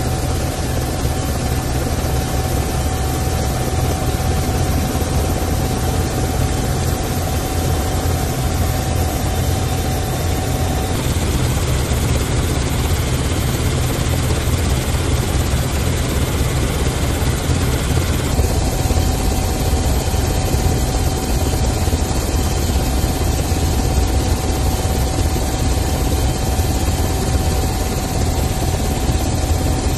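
Helicopter in flight: a steady drone of engine and rotor noise with a strong low rumble. A thin steady whine runs over it, dropping out for several seconds in the middle.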